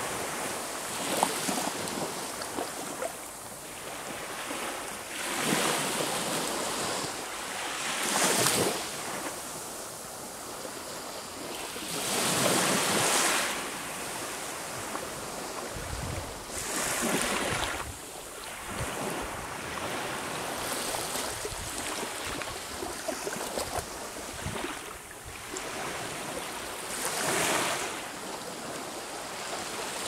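Sea waves breaking on a shore: the surf swells into a louder crash every few seconds and washes back, with a steady rush of water between.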